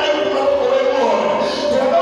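Voices singing together, a church congregation's worship song, with long held notes.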